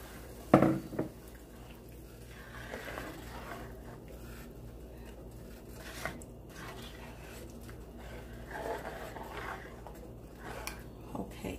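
Plastic spoon stirring a wet blended pepper mix into oil and onions in an aluminium pot: soft squelching and scraping. There is one louder knock about half a second in.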